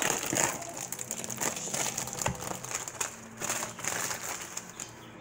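Plastic food packaging crinkling and rustling in a run of irregular crackles as it is handled and opened, fading out near the end.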